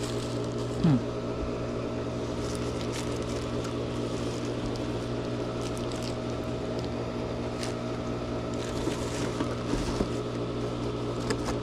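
A steady low mechanical hum with a few light clicks and taps, and one brief falling squeak about a second in.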